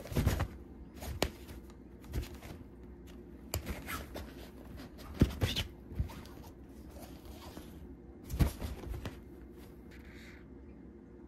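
A kitten playing inside a fabric cat tunnel: the tunnel's thin fabric rustles and crinkles, with several sudden soft knocks as it swats and shifts about.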